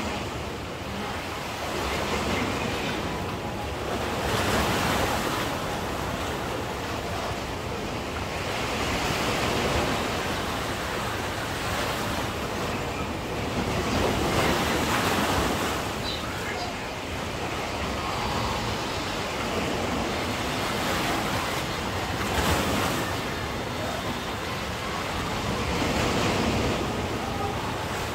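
Sea waves breaking on the shore, the surf swelling and easing every few seconds.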